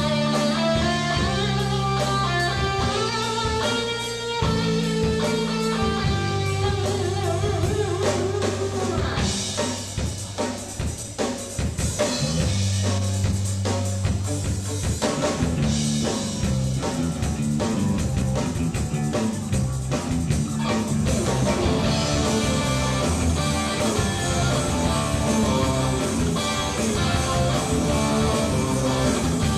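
Rock band playing an instrumental passage: guitar over a low bass line that steps from note to note, with drums.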